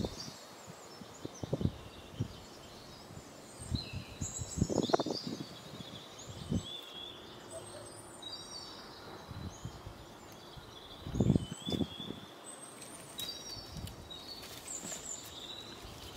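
Small birds chirping and twittering throughout, with irregular rustles and cracks of dry twigs and brush being gathered by hand. The loudest crackling comes about five seconds in and again past the middle.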